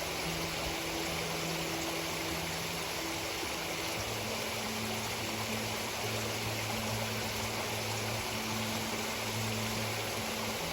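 Small stream's running water, a steady rush. Under it runs a low steady hum that drops to a lower pitch about four seconds in.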